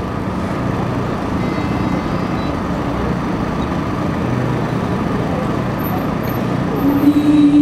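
Steady city traffic noise: a continuous rumble and hiss of road vehicles. A strong held tone comes in near the end.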